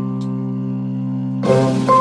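Background instrumental music: a held chord rings on, and a new chord is struck about one and a half seconds in.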